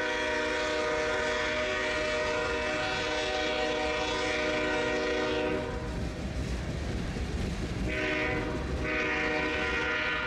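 Locomotive air horn sounding a long blast, then after a pause of about two seconds a short blast and a longer one, over the low rumble of a passing train.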